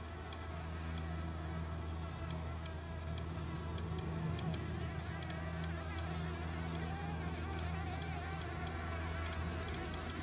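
Green-eyed flower bees (Anthophora bimaculata) buzzing in flight, a steady low hum.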